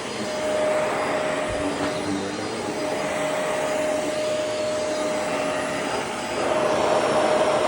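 Shark Rotator vacuum cleaner running over a rug: a steady motor whine over rushing air, getting louder about six seconds in.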